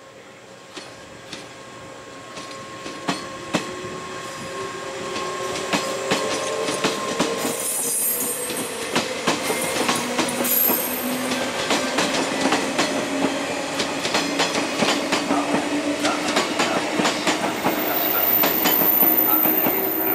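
JR 381 series limited express electric train pulling out and gathering speed past the listener: wheels clack over rail joints, and a motor hum rises slowly in pitch. Brief shrill wheel squeals come about eight and ten seconds in, and again near the end.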